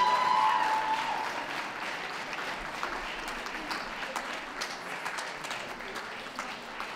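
Audience applauding steadily in a large hall, many individual claps, as the tail of a held musical tone fades out in the first second.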